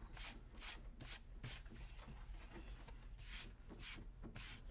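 A hand brushing eraser crumbs off a sheet of drawing paper: short swishing strokes, four in quick succession, then after a pause of about two seconds, two more.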